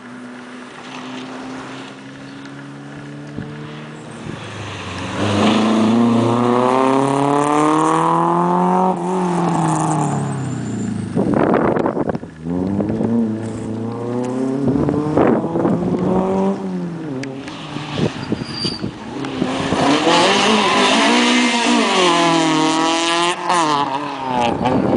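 Rally cars passing one after another at full throttle, engines revving hard and climbing in pitch through the gears, with a drop at each gearshift. A short sharp burst comes near the middle.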